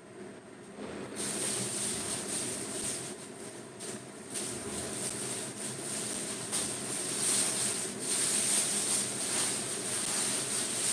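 Chicken sizzling and spattering in a lidded frying pan over a gas flame, a steady crackling hiss that grows louder about a second in.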